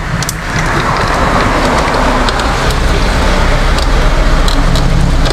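Busy road traffic passing close by: a loud, steady rush of vehicles over a low rumble, swelling in the first few seconds. A few light clicks come near the end.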